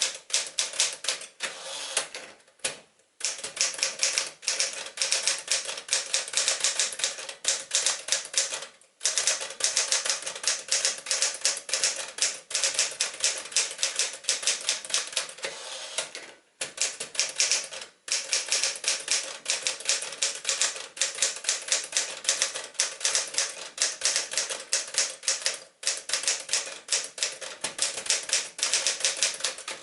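Smith-Corona-built 1965 Penncrest Caravelle manual portable typewriter being typed on: a fast, steady run of sharp key strikes, stopping briefly a few times.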